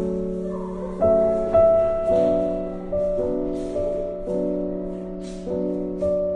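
Background music: slow, gentle piano chords changing about once a second over a sustained pad, with a soft percussive brush on the beats.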